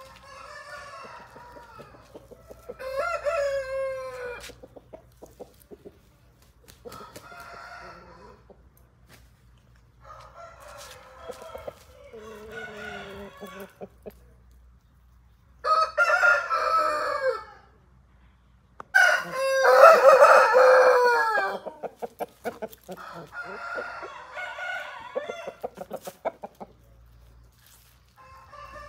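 Aseel roosters crowing and clucking: a series of separate calls, with two long, loud crows just past the middle and shorter, quieter calls between and after.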